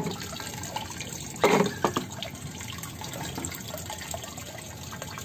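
Water running steadily from a float valve's outlet into a partly filled plastic drum as the tank fills, with one short louder sound about a second and a half in.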